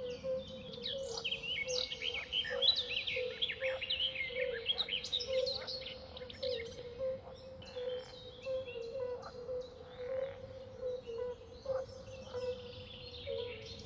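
Swamp ambience: frogs calling in a steady, low, pulsing chorus under many birds chirping and whistling. The birdsong is busiest in the first half and thins out later.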